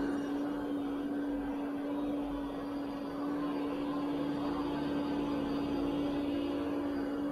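Ecovacs Deebot O950 robot vacuum cleaning a rug with Carpet Boost on: a steady suction-fan rush with a constant low hum, dipping slightly for a moment about two and a half seconds in.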